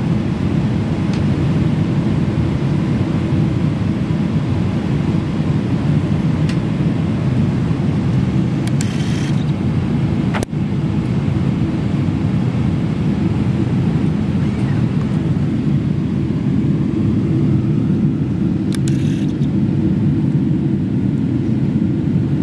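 Steady cabin noise inside a Boeing 777-300ER in flight: an even, low rumble of the engines and the airflow over the fuselage. It breaks for a moment about halfway through.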